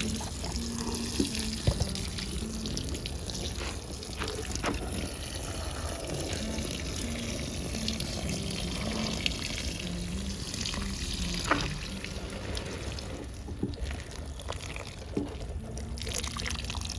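Water running steadily, with a few sharp knocks about a second in, just after, and again a little past the middle.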